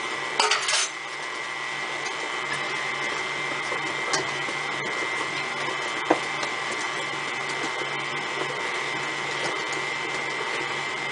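KitchenAid tilt-head stand mixer running steadily, its paddle beating soft cookie dough in a steel bowl, with a constant high motor whine over a low hum. There is a brief clatter about half a second in and a couple of sharp knocks later.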